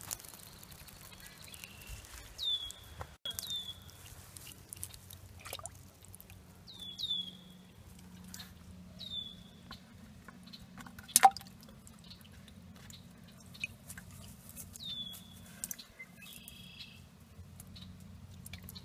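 Water dripping and trickling from a dip net full of wet pond weed into a bucket, with one sharp click about eleven seconds in. A bird repeats a short high whistled note that slides down, about six times, over a faint low hum.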